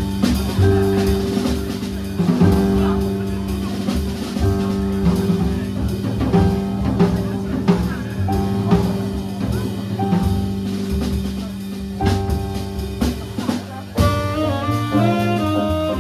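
Live jazz band playing: sustained keyboard chords over a drum kit keeping a steady beat. About two seconds before the end, a lead melody line comes in on top.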